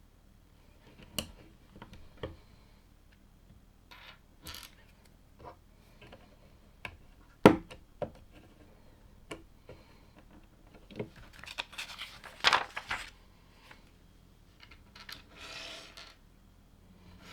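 Plastic LEGO bricks being handled and pressed together: scattered clicks and taps, the sharpest about halfway through, then a quick run of clicking and scraping and a short rustle near the end.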